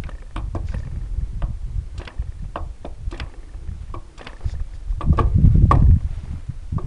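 Wind buffeting the microphone as a low, uneven rumble that gusts louder about five seconds in, with scattered small clicks and knocks.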